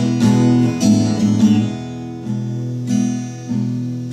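Acoustic guitar being strummed, chords ringing between the strokes.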